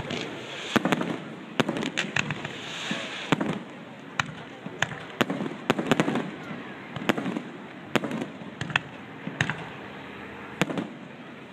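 Fireworks display: an irregular run of sharp bangs and cracks from bursting shells, at times several in quick succession, with a rumbling haze between them.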